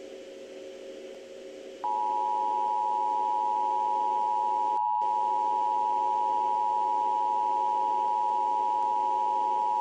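Emergency Alert System attention signal: a steady two-tone alert at 853 and 960 Hz, starting about two seconds in and held for about eight seconds before cutting off. Under it, and alone before it, runs a low steady hum.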